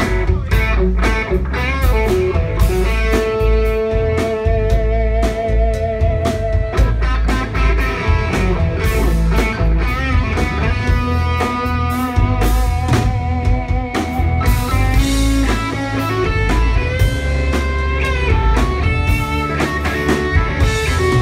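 Live rock band playing an instrumental passage: electric guitars, bass guitar and drum kit, with a lead guitar holding long, wavering notes over a steady beat.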